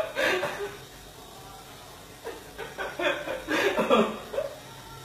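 Laughing and chuckling in short bursts: once at the start, then again in a longer run from about two seconds in.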